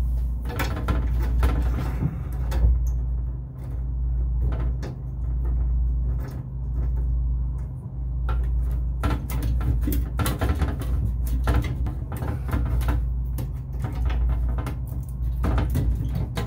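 Irregular clicks, knocks and scrapes of hands and a small tubing cutter handling the copper refrigerant lines of a walk-in freezer evaporator, over a steady low hum.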